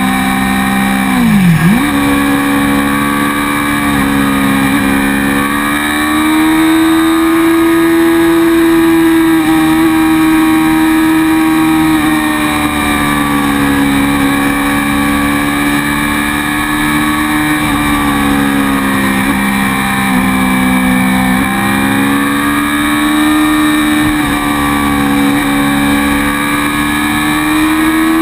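Motorcycle engine heard from a camera mounted on the bike, running steadily with its pitch rising and falling gently as the throttle changes through curves, over wind and road noise. About a second and a half in, the pitch drops sharply and jumps back up higher, a gear change.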